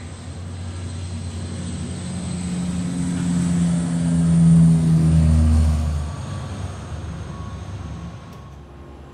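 Buddha Air ATR 42's twin turboprop engines at takeoff power as it rolls down the runway, a steady low drone. It grows louder to a peak about halfway through, then fades as the plane passes and moves away.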